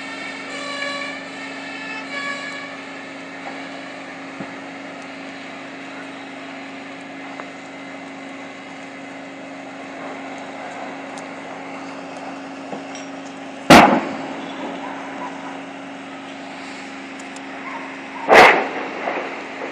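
Two loud explosions from a burning building, sharp bangs about four and a half seconds apart in the second half, each trailing off in a short rumble. A fire engine's siren sounds in pulses for the first two seconds.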